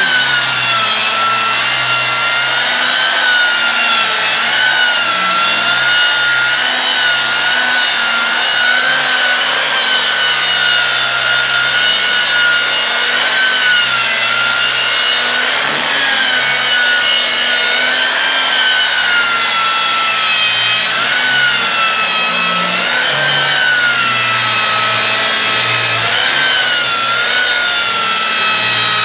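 Electric angle grinder fitted with a sanding disc, running steadily while sanding a wooden door frame. Its high whine wavers slightly in pitch as the disc is worked across the wood.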